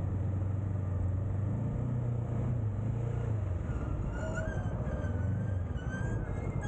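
Honda CB500X's parallel-twin engine running at a steady road speed under a continuous low rumble of road noise.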